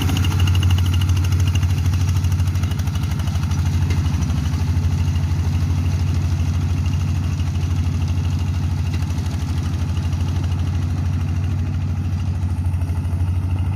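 Engine of a boat tractor (rice-paddy plowing machine) running steadily with an even, rapid beat.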